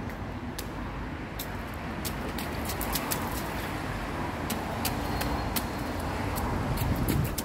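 Small boots stepping and splashing in a shallow rainwater puddle: irregular, short, sharp splashes and drips over a steady low background rumble.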